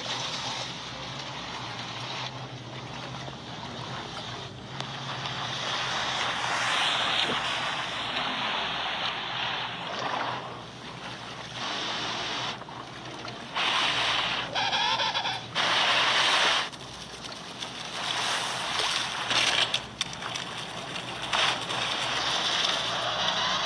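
Sea water sloshing and splashing with waves and wind, rising and falling in surges. The loudest splashes come about two-thirds of the way through, with a brief wavering call among them.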